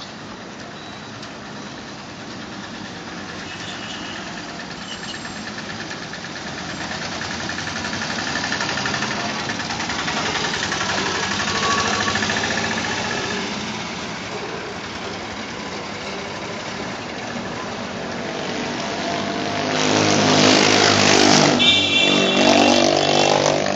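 Road traffic going past, swelling and fading as vehicles pass. About twenty seconds in, a motorcycle engine comes close and loud, its pitch rising near the end.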